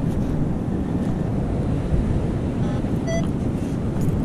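Wind buffeting the microphone in a steady low rumble, with ocean surf mixed in. A short, faint pitched tone sounds about three seconds in.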